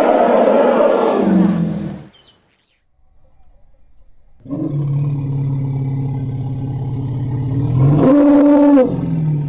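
Elephant calls: a loud, harsh call that ends about two seconds in, then after a short break a long, low call that jumps briefly to a higher pitch near the end.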